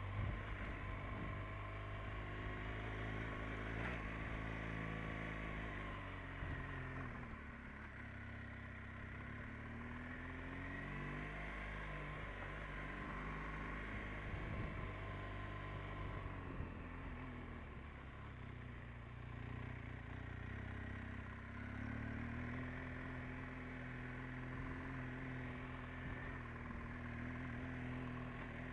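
Motorcycle engine running under way on a steep, narrow road, its pitch falling and rising several times as the revs change with throttle and gear changes.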